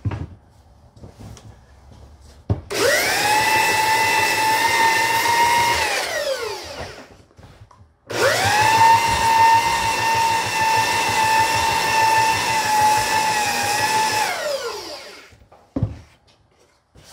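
An old Bosch belt sander with a 180-grit belt, switched on twice for several seconds each time to sand the sides of a glued-up box flush. Each run starts with a quick rise in pitch, holds a steady whine, and winds down with a falling whine. A sharp click comes just before the first run.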